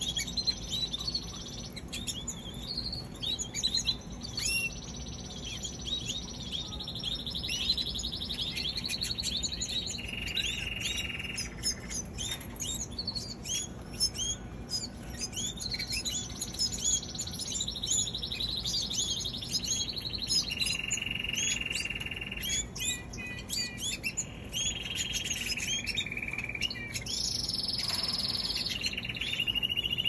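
Canaries singing: a continuous song of rapid chirps mixed with long rolled trills that change pitch every second or two.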